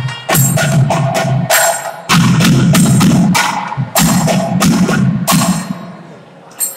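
Thavil drums playing a run of hard, fast strokes without the nadaswaram pipes. The strokes thin out and fade near the end, with one last hit.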